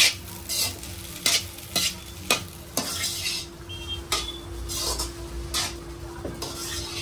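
Slotted steel spatula stirring and tossing egg fried rice in a black wok, scraping and clacking against the pan every half second or so, over a light sizzle.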